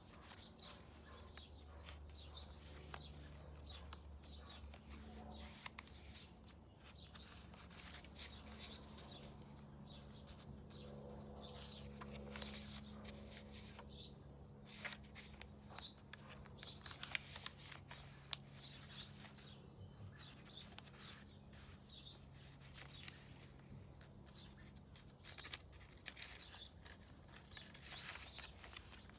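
Scissors snipping and paper being handled and torn in short, crisp clicks, with birds chirping and a faint low hum underneath.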